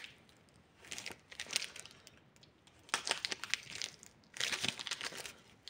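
Parcel packaging crinkling and crackling as it is opened by hand, in three bouts of rustling separated by short pauses.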